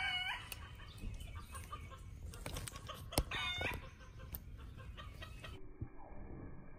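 A chicken clucking, two short calls about three seconds apart, with a sharp click just before the second call.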